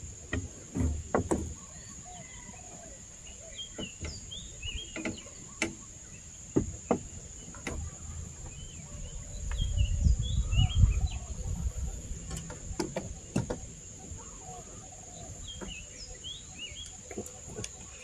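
Outdoor ambience of small birds chirping over a steady high-pitched insect drone. Scattered sharp knocks come through it, and there is a low rumble for a couple of seconds around the middle.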